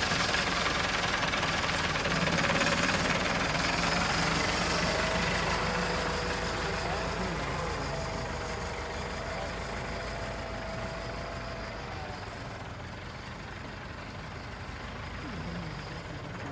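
Diesel farm tractor engine running steadily as the tractor drives off across soft sand, growing fainter as it moves away.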